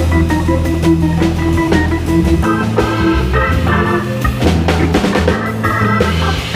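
Hammond B3 organ playing quick runs and chords in a jazz organ-trio performance, with steady low bass notes and a drum kit keeping time, heard close up from the organ.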